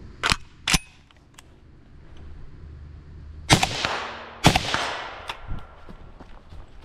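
FN SCAR 16S short-barrelled 5.56 rifle firing four shots: a quick pair less than half a second apart, then two louder shots about a second apart near the middle, each with a long echoing tail. Footsteps through dry leaves follow in the last couple of seconds.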